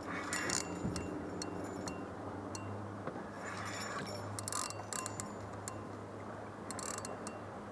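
Scattered light clicks and ticks from a spinning reel and rod as the line is pulled tight against a snag, over a steady low hum.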